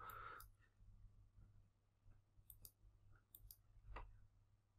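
Near silence with a low, steady electrical hum and a few faint computer mouse clicks, the clearest about four seconds in.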